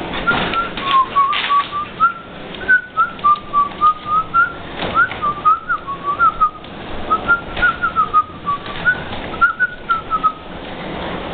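A dog whining: a long string of short, high whimpers, each sliding up or down, two or three a second, stopping about ten seconds in. A few sharp knocks come in among them.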